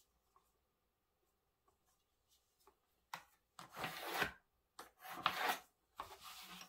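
Pencil drawing lines on pattern paper along a ruler: four scraping strokes, each under a second, beginning about three seconds in.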